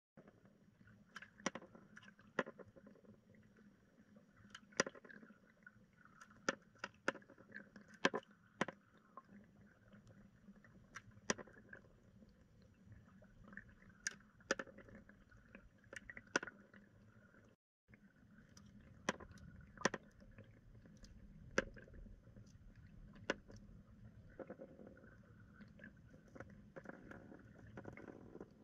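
Underwater sound in a swimming pool, picked up by a submerged camera: a steady low hum and watery haze with irregular sharp clicks and ticks scattered throughout, cutting out for a moment just past halfway.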